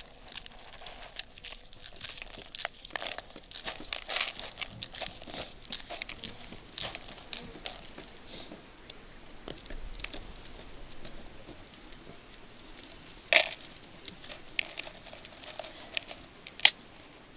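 Dried maize kernels being stripped off the cob by hand and dropping into a plastic bowl: a rapid run of small crackling clicks that thins out in the second half, with two sharper clicks near the end.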